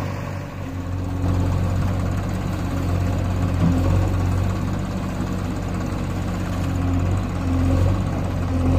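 Tractor diesel engine running steadily at low speed, a constant low-pitched drone.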